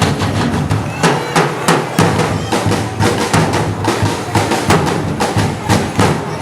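Loud dance music with a strong drum beat, about two beats a second.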